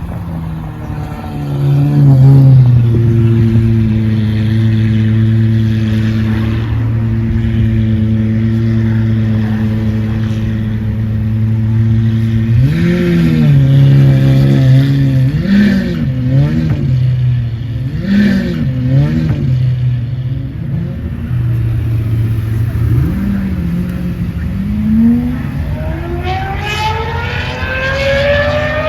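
Lamborghini Aventador SVJ's 6.5-litre V12 with a loud exhaust, flaring as it catches and settling to a steady idle, then blipped in a series of short revs about halfway through, back to idle, and revved in a long rising pull near the end.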